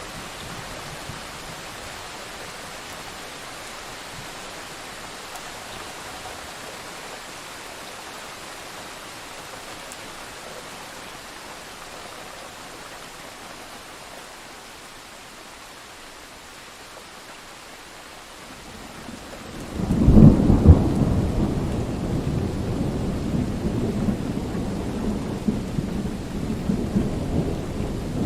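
Thunderstorm sound effect: steady rain hiss, then about 20 seconds in a loud clap of thunder breaks into a long rolling rumble that carries on over the rain.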